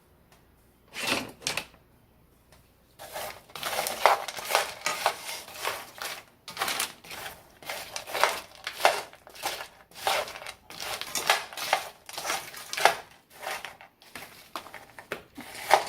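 A utensil scraping and knocking in a skillet, several strokes a second, breaking up a frozen meal and its frozen sauce in the pan. It starts with two short strokes and becomes a steady run of scrapes from about three seconds in.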